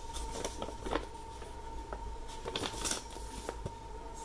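A paper instruction leaflet being folded up and handled, with scattered light paper rustles and taps; the loudest rustle comes about three seconds in.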